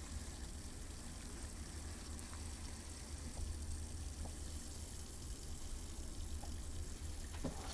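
A steady, even hiss over a low hum, with a few faint clicks scattered through it.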